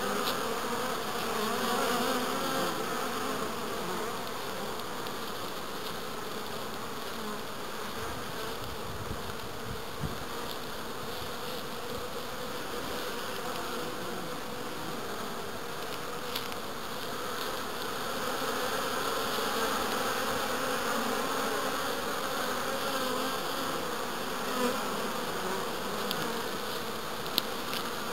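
Honeybees buzzing at the hive entrances, a steady hum of many bees flying and crawling around the entrance reducer, with a few faint clicks.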